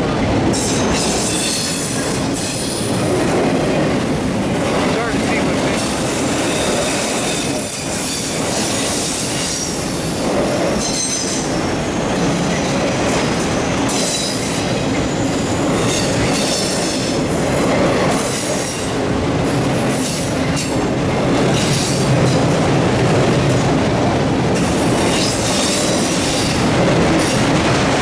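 Autorack freight train rolling past: a steady rumble and clatter of the cars on the rails, with wheels squealing now and then.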